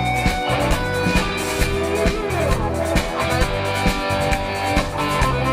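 Live rock band playing an instrumental passage between verses: electric guitars and bass over a steady drum-kit beat, with a lead line sliding down in pitch a couple of seconds in.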